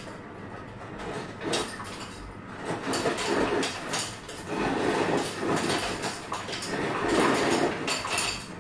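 Crushed ice being scooped out of a container: a run of irregular crunching, rattling scrapes.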